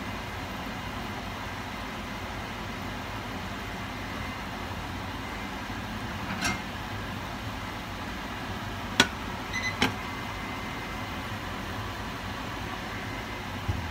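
Sesame-coated dough balls deep-frying in a saucepan of hot oil: a steady sizzle, with a few sharp pops, the loudest about nine seconds in.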